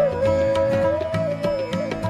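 Background instrumental music: a held melody line that bends in pitch now and then, over plucked strings and a low drum pattern.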